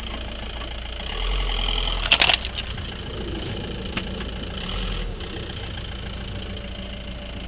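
A mobile phone breaking apart on paving stones: a quick cluster of sharp cracks and clatters about two seconds in, with a single click a couple of seconds later, over a steady low rumble.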